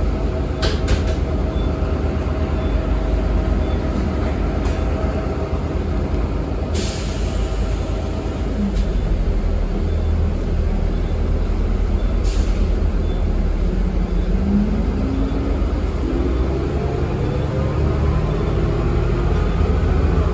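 Ride inside a 2013 Eldorado National Axess transit bus: a steady engine and road rumble, with two short hisses of air about seven and twelve seconds in. The engine note climbs in steps over the last few seconds as the bus gathers speed.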